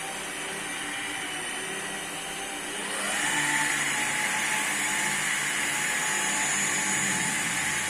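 Stanley SP 137 electric rotary car polisher running steadily on a paint panel, its motor whine gliding up in pitch and getting louder about three seconds in as the speed rises, then holding steady.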